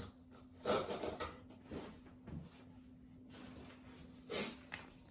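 Trowel scraping and spreading thinset mortar over an electric floor-heating mat: a handful of short scraping strokes, the loudest about a second in and again near the end.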